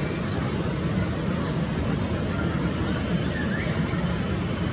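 Distant steady rumble of a Boeing 747-8F freighter's GEnx jet engines at low taxi power as the aircraft taxis to the runway.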